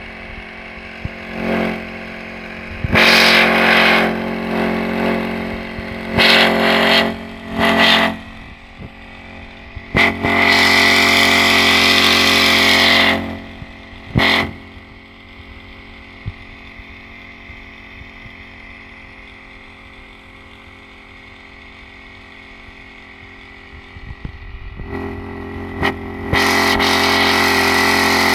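Small four-stroke engine of a Honda motorized backpack sprayer running steadily, with loud hissing bursts as it sprays: several short ones in the first third, a longer one of about three seconds around ten seconds in, and another that starts near the end.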